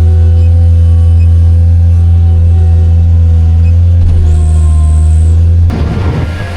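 A heavy engine running at a steady speed with a deep, even hum; the sound shifts abruptly near the end.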